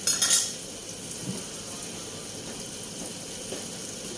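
Chicken cooking in a pan, giving a steady sizzling hiss, with a brief louder hiss in the first half second.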